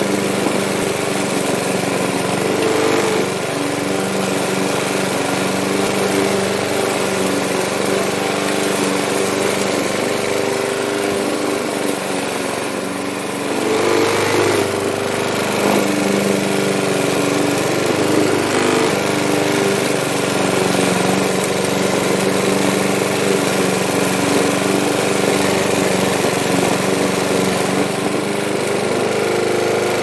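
Petrol lawn mower engine running steadily. About halfway through, its note fades and wavers for a moment, then picks back up.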